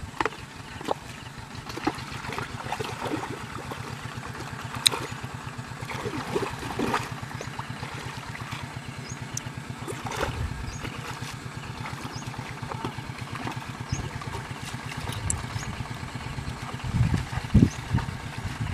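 A small engine running steadily in the background, with a fast, even pulse. Over it come occasional splashes and squelches of feet and hands in shallow muddy water.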